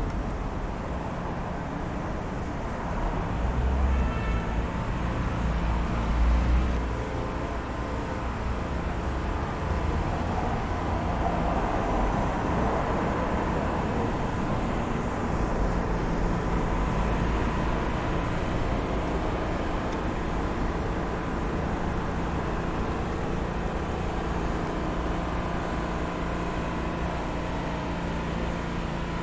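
City street traffic: a steady wash of passing cars and engines, with heavier low rumbles of passing vehicles about four and six seconds in.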